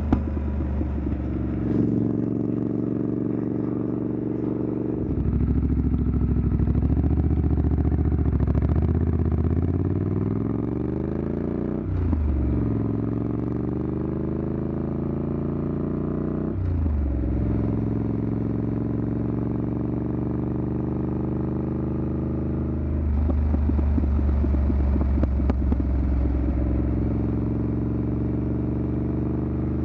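Triumph Scrambler 900's parallel-twin engine through an aftermarket exhaust while riding. The engine pulls up through the gears, its pitch rising and then dropping sharply at two upshifts about midway. It then holds a steady cruise and grows louder near the end.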